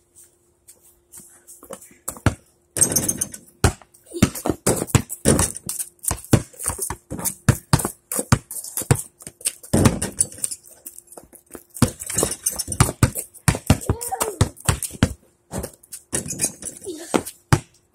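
Basketballs bouncing on a concrete driveway, a string of sharp thuds that starts about three seconds in and keeps going irregularly, with several balls in play. Voices call out briefly now and then.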